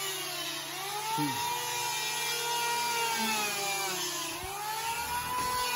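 Corded electric hand planer running as it is pushed along a log floor joist, shaving off a high spot. Its motor whine sags in pitch as the blades bite into the wood and recovers, twice.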